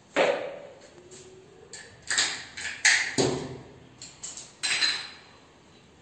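A handful of sharp knocks and clinks as small metal paint tins and a lid are handled, set down on the floor and knocked against a plastic paint bucket.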